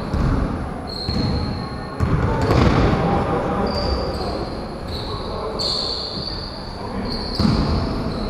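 Basketball game on a wooden gym floor: the ball thudding as it is dribbled, and short high-pitched sneaker squeaks, echoing in the hall.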